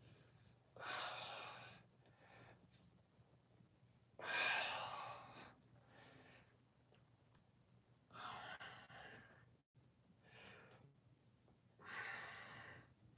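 A person breathing hard from exertion: four heavy sighing exhales about every three to four seconds, with softer breaths between.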